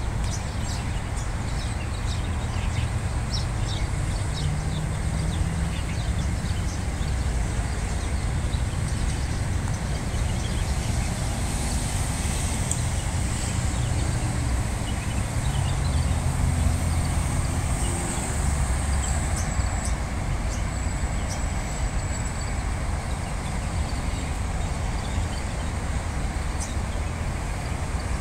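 Steady road traffic noise, a low rumble of cars passing, with short high bird chirps scattered over it.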